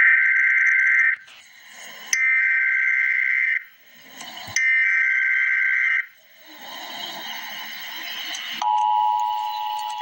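Emergency Alert System header: three shrill, warbling data bursts, each about a second and a half long with short gaps between them. After a brief noisy stretch, the steady, harsh two-tone EAS attention signal starts near the end and keeps going.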